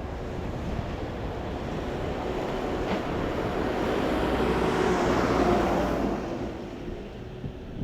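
Jet aircraft passing: a rushing jet noise with a steady engine whine that builds to a peak about five seconds in, then fades.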